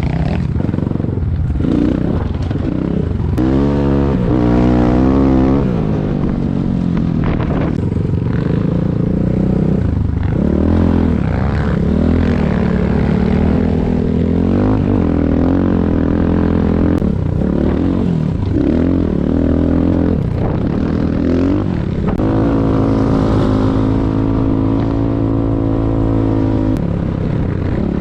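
Enduro dirt bike engine running under load, revving up and down continually as it is ridden along a trail, with its pitch rising and falling every second or two.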